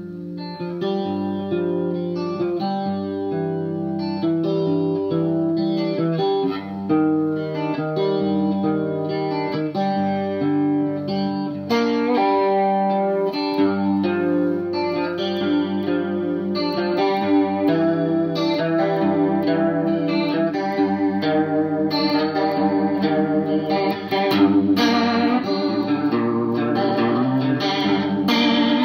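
Electric guitar, a Fender Stratocaster, played through a Danelectro Money Laundry rotary-speaker emulator pedal: sustained notes and chords with a warbling Leslie-style swirl that turns noticeably faster about two-thirds of the way through.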